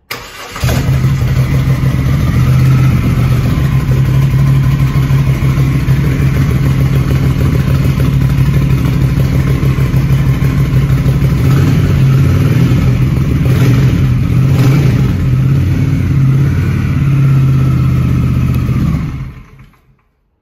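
Moto Guzzi California 1400's 1380 cc air-cooled transverse V-twin starting up about half a second in and running steadily, then switched off near the end.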